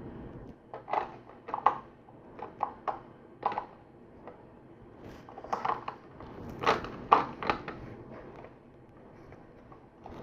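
LEGO plastic bricks being handled and pressed together: a series of short sharp clicks and snaps in two clusters, the loudest about seven seconds in.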